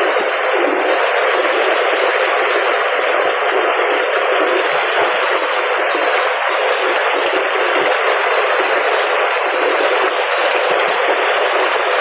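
Steady rushing of water, an even hiss that holds at one level throughout.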